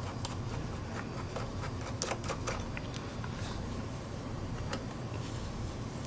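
A Phillips screwdriver backing the screw out of an iMac's aluminium memory-cover plate and the plate being lifted off: scattered small metallic clicks and ticks, with a quick cluster about two seconds in.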